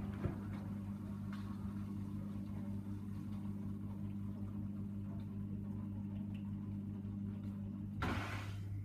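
Hoover Dynamic DYN 9164 washing machine running mid-programme on its Rapid 30 wash, a steady low hum. A brief louder rush of noise comes near the end.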